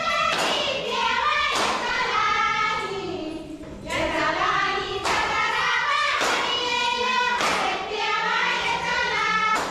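A group of voices singing a folk song together, over a sharp percussive strike roughly every second and a quarter, typical of a Tharu cultural dance performance.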